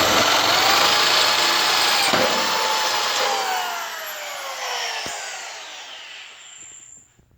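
Power drill with a 9/16-inch bit drilling through the steel bedside of a 1951 Ford truck bed. The motor whine holds steady for about two seconds, then its pitch falls away slowly as the drill slows and quietens.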